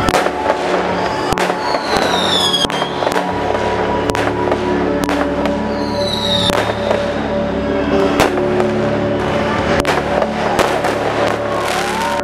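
Aerial fireworks bursting in a rapid, irregular series of bangs, with two shells whistling down in pitch, over background music.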